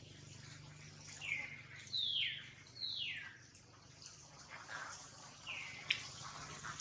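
Bird calls: four quick whistles, each sliding downward in pitch, with a sharp click just before the end.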